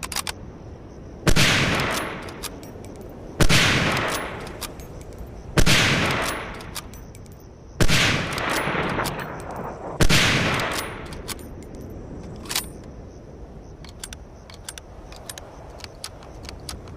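M1903A4 Springfield bolt-action .30-06 rifle fired five times, about two seconds apart, each shot trailing off over about a second. Short, light clicks fall between the shots and after the last one.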